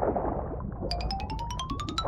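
Cartoon sound effect: a quick run of short plinking notes climbing steadily in pitch, about ten a second, starting a little under a second in, over a low noisy background.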